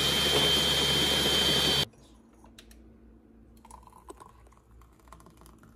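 Countertop blender running at full speed, blending ice, milk, fruit and ice cream into a milkshake, then stopping abruptly about two seconds in. After it, faint clicks and small knocks of glassware as the thick shake is poured from the blender jar into a glass.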